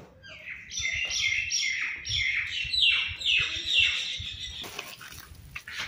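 A bird calling close by: a rapid run of about a dozen loud, falling chirps, roughly three a second, that stops near the end.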